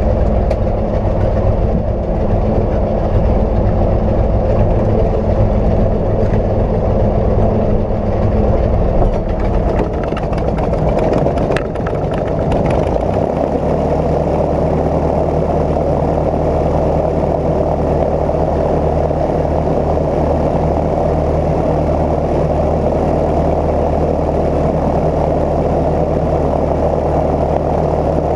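Cozy Mk IV's piston engine and pusher propeller running steadily. About twelve seconds in, the note changes and settles at a new steady pitch.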